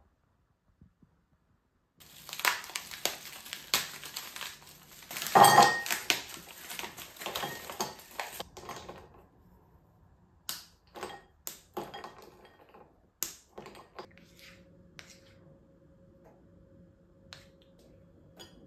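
Bar of white chocolate snapped into pieces by hand, a dense run of crisp snaps and pieces clinking into a ceramic bowl, loudest about five seconds in. Sparser single clicks follow, then a faint steady hum from about two-thirds of the way in.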